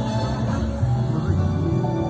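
Music with long held low bass notes under steady sustained higher tones.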